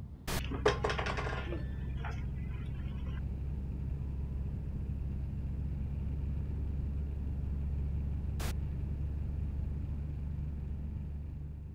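A sharp crack and a brief clatter, then a steady low engine-like rumble that holds and fades out near the end, with a single click about eight seconds in.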